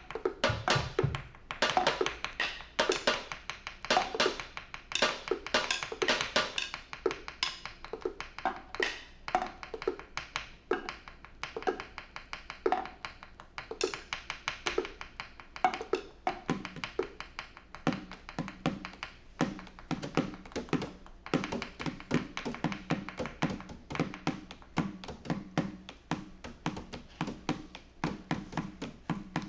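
Improvised music from a bass, drums and guitar group: a dense, irregular run of dry taps and clicks, several a second. Lower knocks grow stronger in the second half.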